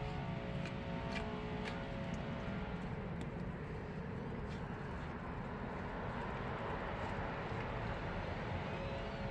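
Steady outdoor background rumble and hiss with a faint humming tone, like distant traffic or an engine, and a few light clicks in the first few seconds.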